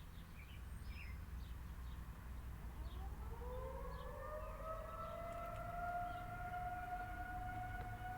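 Federal Signal 2001-130 electromechanical warning siren starting up on a test: from about three seconds in its pitch rises and levels into a steady tone. Birds chirp during the first few seconds.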